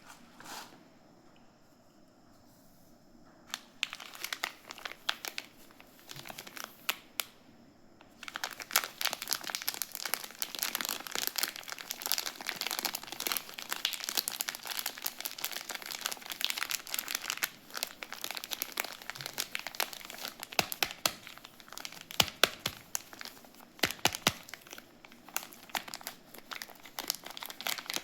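Wrapping on a soap bar crinkled and torn open by hand. It starts quiet, with a few scattered crinkles from about three and a half seconds in, then turns into dense, continuous crinkling from about eight seconds on.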